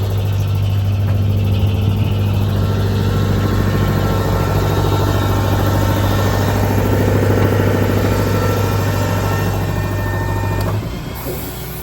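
Ford F550 service truck's engine running steadily, with a strong low hum that cuts off near the end and leaves a quieter rumble.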